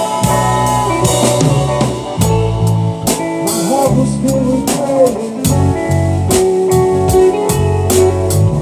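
Live band music: drum kit keeping a steady beat under sustained guitar and other pitched instruments.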